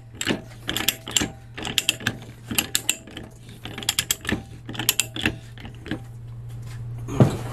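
Ratchet handle of an HFS TAR-100 hand pipe threader clicking in bursts, about one burst a second, as the die is worked round on 1-inch black iron pipe to clean up the threads. The clicking stops about six seconds in, and a single knock follows near the end.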